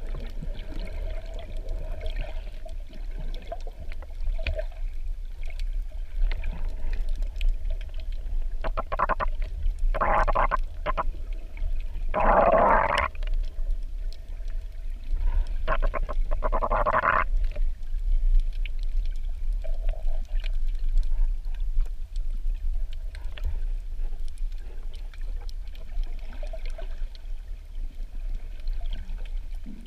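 Water noise heard through an underwater camera held below the surface: a constant low rumble, with several louder bursts of water noise between about nine and seventeen seconds in.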